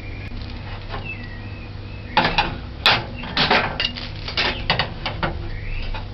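A quick run of about ten sharp knocks and rustles over about three seconds, starting about two seconds in, with birds chirping faintly in the background.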